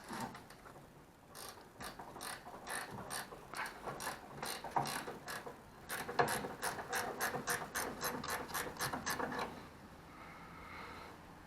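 Hand socket ratchet clicking in a run of quick strokes as a fitting is worked loose, the clicks coming faster in the second half and stopping near the end.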